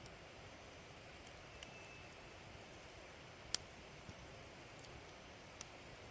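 Log fire burning in a fire pit, giving a few sharp pops of burning wood, the loudest about halfway through. A steady high insect trill runs under it.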